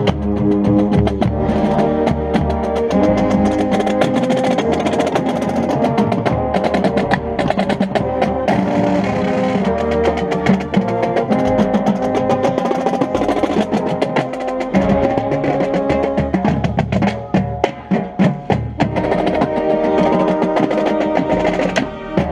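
Marching band playing: sustained wind and brass chords over drumline percussion, with a stretch of heavy drum hits about two thirds of the way through.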